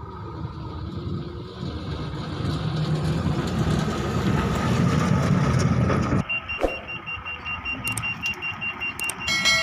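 Ashok Leyland tipper truck's diesel engine getting steadily louder as the truck approaches and passes close by. About six seconds in, the sound drops abruptly and a rapid, steady electronic beeping takes over, with a few sharp clicks and a short chime near the end.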